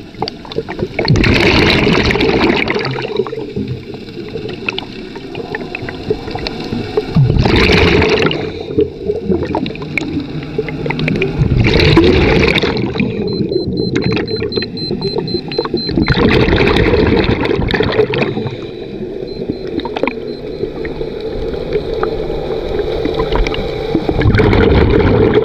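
Scuba diver's open-circuit breathing underwater: about five loud gurgling bursts of exhaled bubbles from the regulator, a few seconds apart, with a steady underwater rumble between them.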